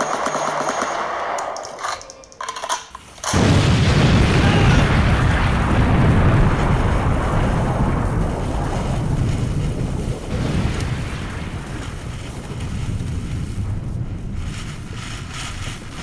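Ground firework fountains going off: a sudden loud burst of noise about three seconds in, heaviest at first and slowly fading.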